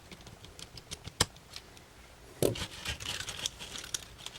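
Small tools and camera parts clicking and scraping while a Nikon COOLPIX W100 compact camera is taken apart, with one sharp tick about a second in and a duller knock near the middle.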